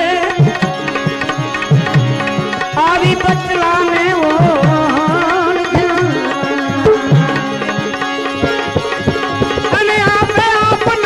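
Instrumental interlude of a devotional bhajan: tabla playing a steady rhythm under a wavering melodic line.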